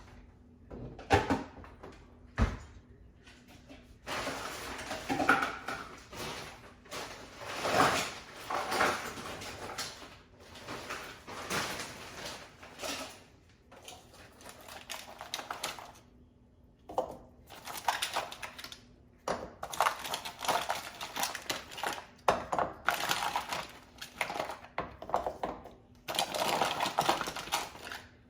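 Frozen meatballs going one after another into a pan of hot butter, olive oil, onions and garlic, with clattering and crackling in spells of a few seconds each.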